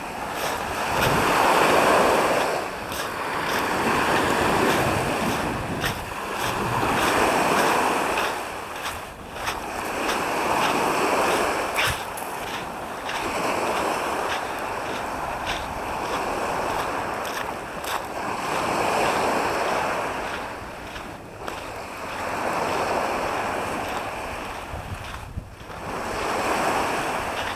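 Small Black Sea waves breaking and washing up a shingle beach, the surf swelling and fading every two to three seconds, with some wind on the microphone.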